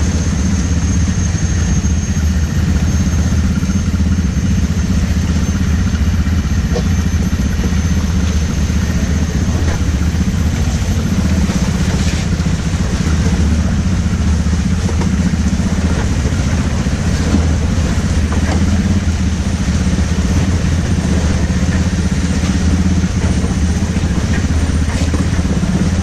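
ATV engine running steadily with little change in speed.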